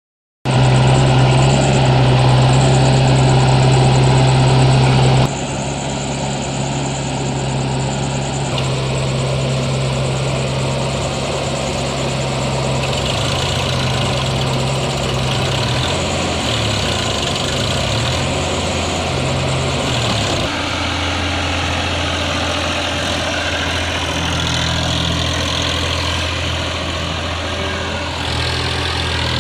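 Diesel engines of a backhoe loader and a Massey Ferguson tractor running steadily at low speed. The sound changes abruptly in level and tone about five, eight and twenty seconds in.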